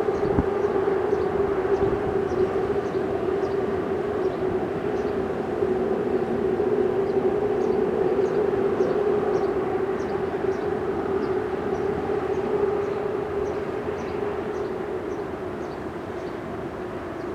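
Steady droning hum of a bridge: one strong low tone with a fainter higher tone above it, swelling slightly and then easing off near the end. Short high chirps repeat over it throughout.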